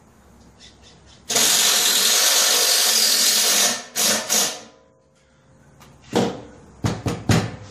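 Cordless drill driving a screw through aluminum diamond plate into the trailer frame: one steady run of about two and a half seconds, then two short bursts to seat the screw. A few sharp knocks follow near the end.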